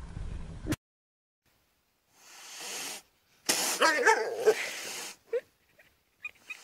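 A cat's rough, wavering call lasting about a second and a half, then a few short squeaky sounds near the end.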